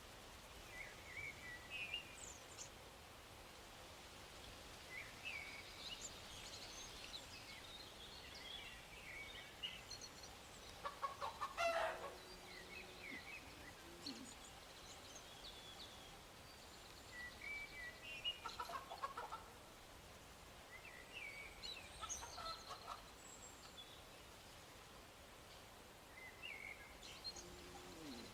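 Faint bird calls in the background: scattered short, high chirps, with a louder burst of calling about twelve seconds in and again around eighteen and twenty-two seconds.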